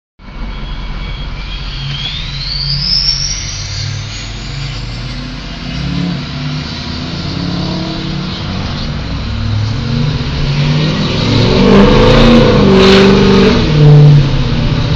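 Ford 6.0 L Powerstroke V8 turbo-diesel in a 2007 F-250, fitted with a 2003 Ford 10-vane turbocharger, running. A turbo whistle climbs steadily in pitch over a few seconds as the turbo spools. Near the end the engine revs rise and it gets louder.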